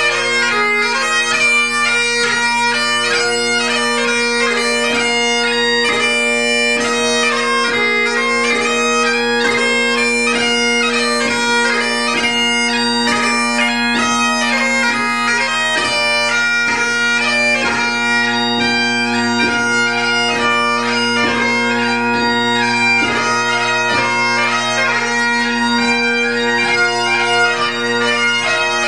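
Great Highland bagpipe played solo: steady drones sounding under a chanter melody that moves quickly, broken by frequent crisp gracenotes.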